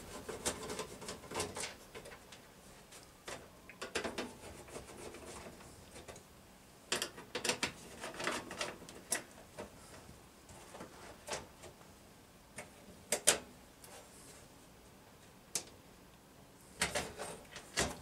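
A hand screwdriver backing screws out of a plastic box-fan grille: scattered light clicks and knocks with quiet gaps between them. Near the end, a cluster of plastic clatter as the grille is worked loose and lifted off.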